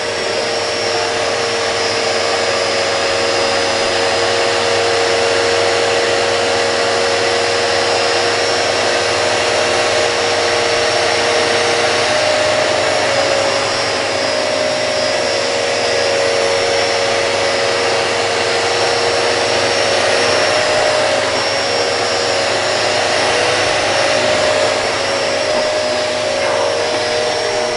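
Two bagless vacuum cleaners, a Hoover Hurricane and a Dyson DC04, running together at full power with a loud, steady motor whine and airflow rush.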